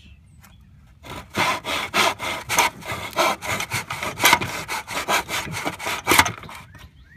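Fine-tooth hand saw cutting a trim strip in a plastic miter box: quick back-and-forth strokes starting about a second in and stopping shortly before the end.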